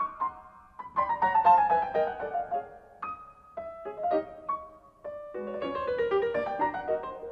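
Background piano music: a solo piano playing runs of notes that fall in pitch, with a brief lull about five seconds in.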